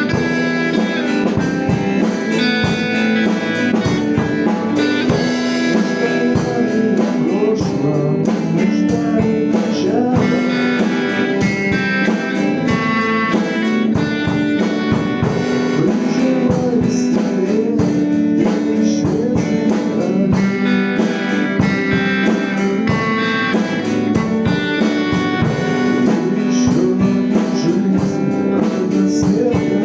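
A rock band playing a song: guitars and a drum kit at a steady beat.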